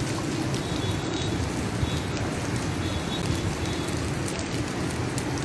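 Steady noise of heavy rain and floodwater rushing along a flooded street, with no break or sudden event.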